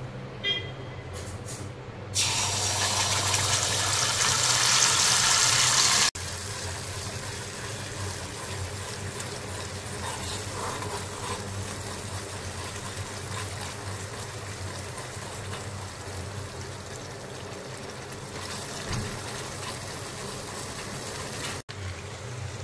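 Sauce sizzling loudly as it hits hot oil in a kadai for about four seconds, then stopping suddenly. After that the sauce goes on with a quieter, steady sizzle as it cooks.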